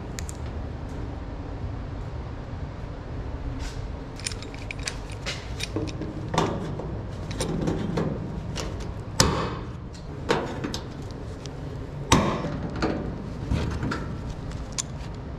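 Sharp clicks and knocks from handling a sheet-steel car floorpan and the clecos that hold it in place. Small clicks start about four seconds in, followed by louder knocks about nine, ten and twelve seconds in.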